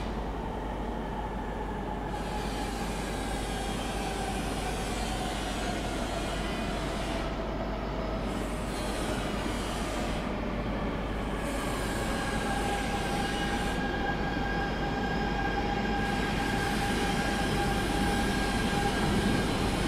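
E926 East-i Shinkansen test train rolling slowly along a station platform, a steady rumble with a high whining tone that slowly falls in pitch, then settles into a steady higher whine in the second half, growing louder as the train comes closer.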